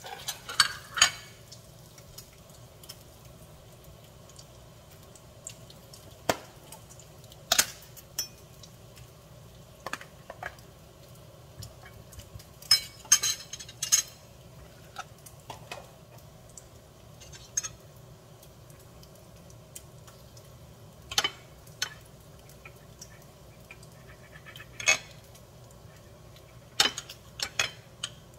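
Knife and fork clinking and scraping against a ceramic plate as a cooked steak is cut, in short sharp clinks every few seconds. A plate is set down on a stone countertop near the start.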